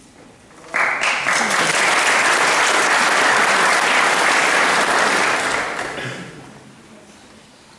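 Audience applauding, starting sharply about a second in and dying away over the last couple of seconds.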